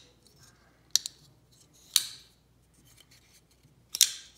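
Blade of a custom SnG folding knife being flicked open and snapped shut against its detent and lock, making sharp metallic clicks: a quick double click about a second in, a single click about two seconds in, and another double click near the end.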